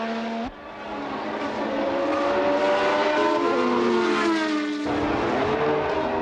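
1970s Formula 1 racing engines at high revs, their pitch rising and falling as the cars accelerate, shift and pass. The sound cuts abruptly about half a second in and changes again near five seconds in.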